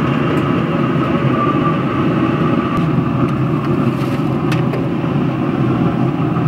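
Steady loud whirring rush and hum of a Pit Boss Navigator pellet grill running with its lid open, its fan and fire pot going at baking heat. A few faint light clicks sound partway through.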